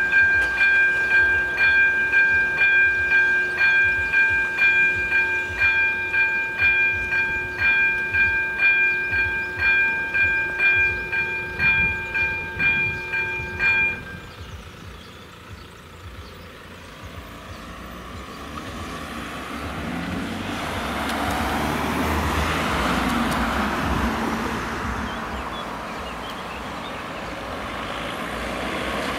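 Electronic warning bell of AŽD 97 level-crossing signals ringing in evenly repeated dings, about one and a half a second, then cutting off about 14 seconds in as the crossing warning ends. Road vehicles then pull away and drive across the crossing, their noise building up.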